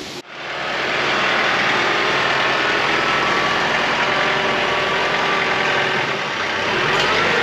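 A vehicle engine running steadily, starting abruptly just after a brief dropout.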